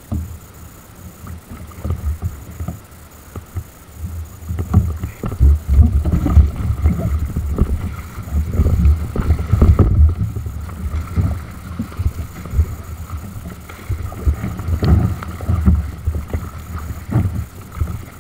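Rough water splashing and slapping against a fishing kayak's hull as it is paddled through heavy swell, in uneven surges every second or so, with wind buffeting the microphone.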